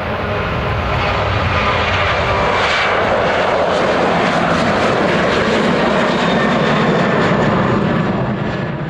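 Boeing 737 jet engines running at high power, a loud, steady rumbling noise with a faint whine.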